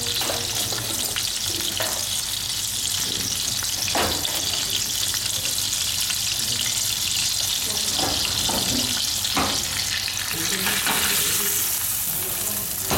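Kingfish steaks sizzling steadily in hot oil in a non-stick frying pan, with a few light knocks of a wooden spatula against the pan. The hiss grows brighter near the end as a steak is lifted to be turned.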